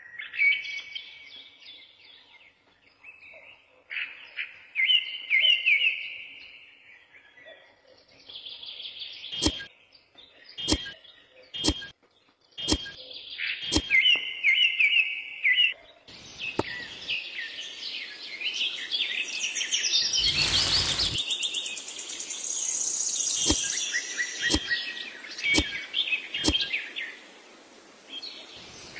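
Small birds chirping and twittering in short repeated phrases. Two runs of sharp taps come through it, five about a second apart in the middle and four more near the end, with a brief loud burst of noise a little after two-thirds of the way in.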